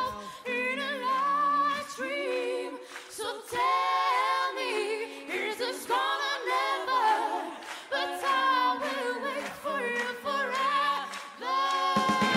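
Several voices singing unaccompanied in harmony, holding notes with vibrato. Near the end, instrumental music with bass comes in.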